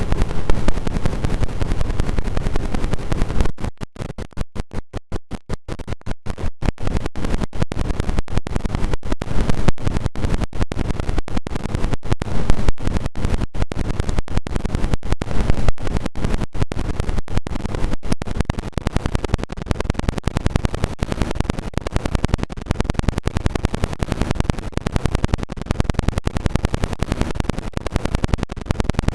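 An Android alarm tone mangled by heavy distortion effects into loud, harsh noise with no clear tune left. From about three and a half seconds in it is chopped into a rapid stutter of short gaps, about four a second at first.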